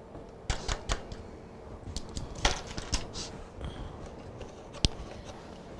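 Scattered light clicks and taps of kitchen handling: a measuring spoon being handled and the cap being screwed back onto a half-and-half carton. Three quick taps come about half a second in, several more a couple of seconds in, and one sharp click near the end.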